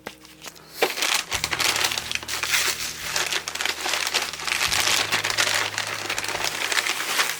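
Packaging being torn open and crumpled by hand: tape and wrapping pulled off, a dense run of crinkling that starts about a second in.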